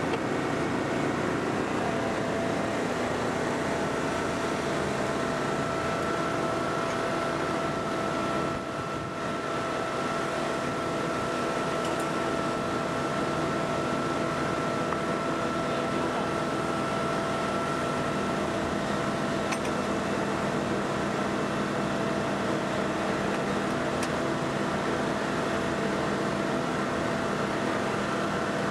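Engine-driven hydraulic power unit for Hurst rescue tools running steadily, with a steady whine over it that comes and goes as the tool works.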